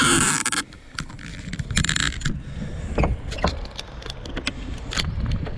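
Bicycle being ridden along a trail: rattling and clicking from the bike over a low rumble of wind on the microphone, with two short hissing bursts, one at the start and one about two seconds in.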